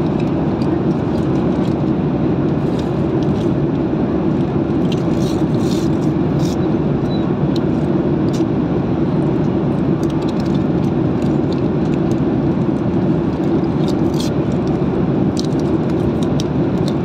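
Steady low rumble of a car cabin, engine and road noise, running evenly throughout, with scattered light clicks and crinkles from a foil card packet being handled.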